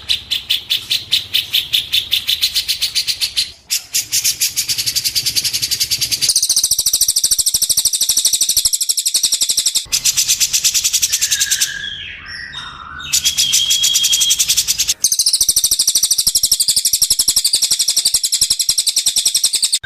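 A songbird gives a long, rapid, even trill of high chirps. About two-thirds of the way through, the trill pauses briefly and a few short whistled notes are heard.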